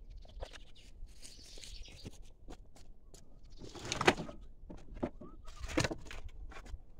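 Handling and work noises: scattered light clicks and knocks, with two louder scraping sounds about four and six seconds in.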